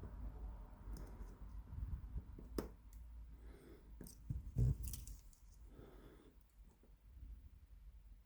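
Small metallic clicks and scrapes of a thin metal probe working the pins of an 8-pin tubular cam lock while it is held under tension: a handful of scattered ticks, the loudest about four and a half seconds in.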